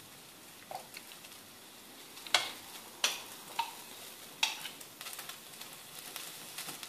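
A utensil stirring prunes in a metal pot of hot water, with several short knocks and clinks against the pot over a faint steady hiss.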